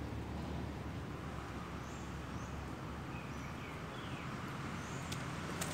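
Outdoor background: a steady low rumble with a few faint bird chirps in the middle, and a brief sharp knock or splash right at the end.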